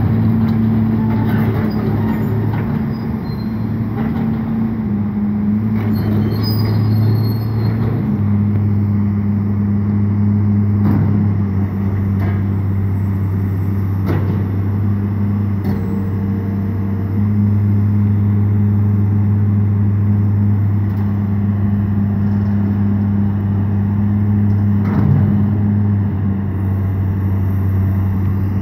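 Caterpillar 325LN tracked excavator's diesel engine running steadily under hydraulic load as the boom and bucket work. Its note shifts a couple of times, and a few short knocks sound over it.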